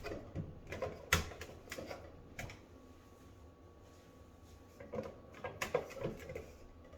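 Scattered light clicks and taps as hands grip and twist a tight threaded washing machine hose fitting, trying to loosen it.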